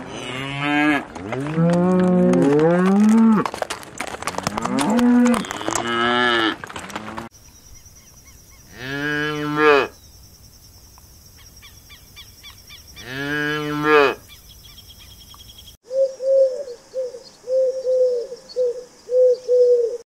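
Cattle mooing: several cows and calves low over one another for the first seven seconds, then two separate long moos follow a few seconds apart. Near the end comes a quick run of short, higher-pitched calls.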